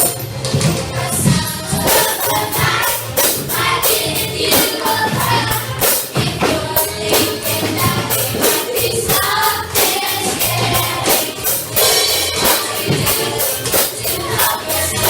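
Music: voices singing over a steady, evenly spaced percussion beat with high shaken strokes.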